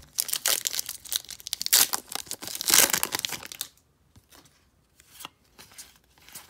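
Stack of trading cards rustling and crinkling as the cards are shuffled through by hand, dense for about three and a half seconds, then a few faint slides and taps.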